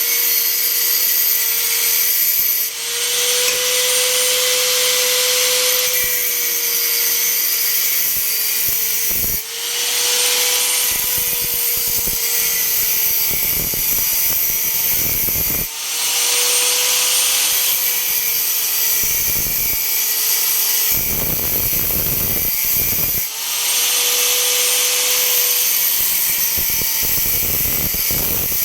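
Electric arc welding: a loud, steady hiss with a wavering hum. The arc breaks off briefly about four times.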